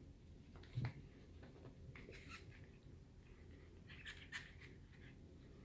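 Two Yorkshire terrier puppies tussling and tugging at a toy on carpet: faint scuffling and light clicks, with one soft thump a little under a second in and a few more clicks about four seconds in.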